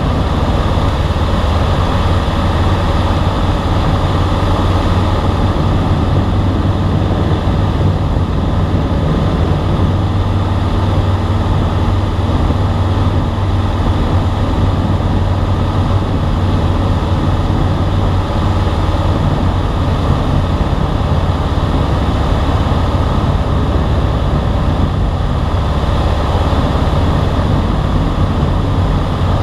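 Light single-engine aircraft's piston engine and propeller running steadily in cruise, heard from inside the cabin, with airflow noise over the airframe.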